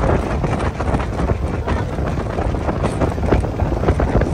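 Wind buffeting the microphone on a moving boat, over the rush of water churned up in the boat's wake.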